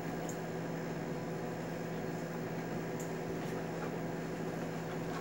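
A steady low hum over a constant background hiss, with a couple of faint light ticks.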